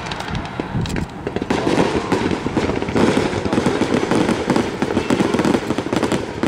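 Fireworks going off: scattered bangs at first, then from about a second and a half in a dense, rapid run of pops and crackles as a wide row of small aerial shells bursts into many stars at once.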